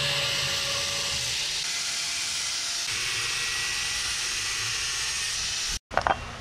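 Angle grinder with a thin cut-off disc cutting through flat steel bar: a steady grinding noise with a faint whine whose pitch shifts about three seconds in. It stops suddenly near the end, followed by a few light clicks.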